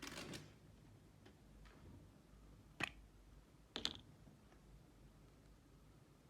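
Near silence broken by a few isolated clicks and taps from slime-making materials being handled: a soft rustle at the start, then two sharp clicks about a second apart near the middle.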